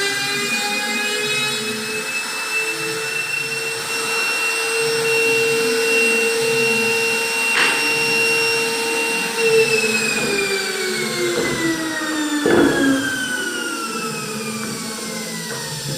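An electric power tool's motor running with a steady whine while cutting wood. About halfway through, its pitch starts to sink slowly, and a few sharp knocks come through.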